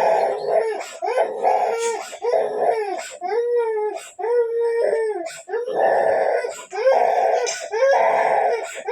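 Young child crying hard: a steady run of wailing sobs, about one a second.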